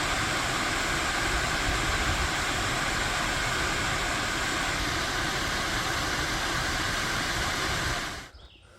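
Waterfall: a steady, loud rush of falling water that cuts off abruptly near the end.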